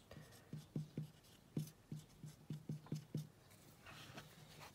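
Dry-wipe marker writing on a whiteboard: a quick, irregular run of short, faint strokes and taps as figures are written.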